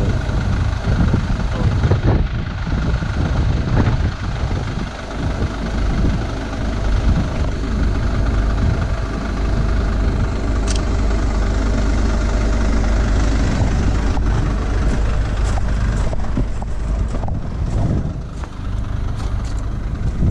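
Mercedes Sprinter 310's four-cylinder diesel engine idling steadily.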